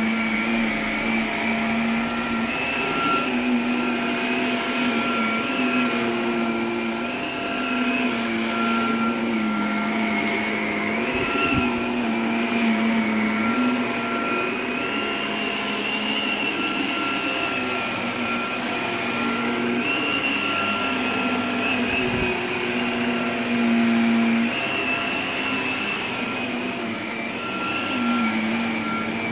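Upright vacuum cleaner running steadily while pushed back and forth over carpet, its motor whine wavering slightly in pitch as it goes.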